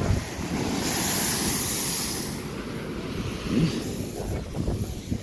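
Sea water and spray blasting out of the Kiama Blowhole: a rushing hiss swells about a second in and fades away a second and a half later. Heavy wind rumbles on the microphone throughout.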